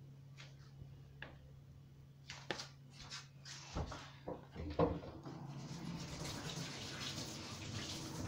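A few light knocks and clicks of kitchen utensils being handled, then a kitchen tap running steadily from about five seconds in.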